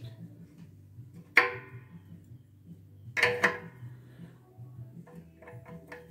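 Steel wrenches clinking against metal while tightening a brass fitting on the air compressor's copper discharge line: one sharp ringing clank about a second in and a double clank just past three seconds, then a few light ticks near the end.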